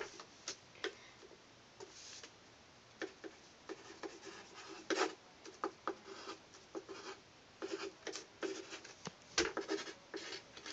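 Hand-writing on paper: irregular short scratching strokes, with a sharp knock at the start and another about nine and a half seconds in.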